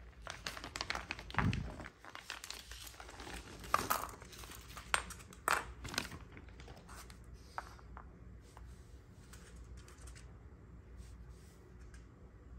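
Clear plastic wrapping being crinkled and pulled open around new stainless steel cutlery: a run of crackling rustles in the first half, then quieter, with only a few faint ticks.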